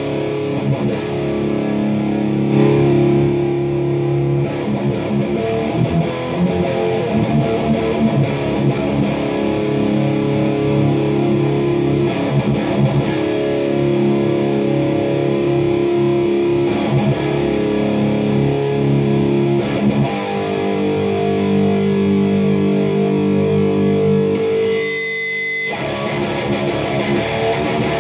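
Electric guitar chords played through a PRS MT-15 tube amp head on its red channel, with bass, mid and treble at noon, into a Mesa speaker cabinet. The tone is distorted and the EQ pedal is bypassed. The playing breaks off briefly a few seconds before the end, then starts again.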